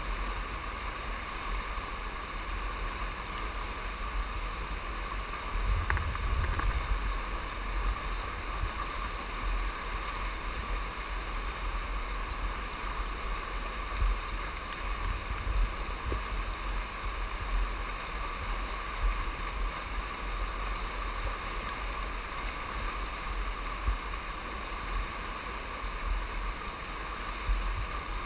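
Steady rush of the flooded Sandusky River's whitewater rapids, with low gusts of wind buffeting the microphone, strongest about six seconds in.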